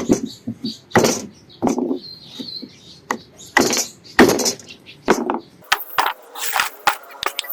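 Repeated short, sharp work strokes of a hand tool on wood, about one a second. In the last two seconds they turn to quicker, shorter strokes, about four a second.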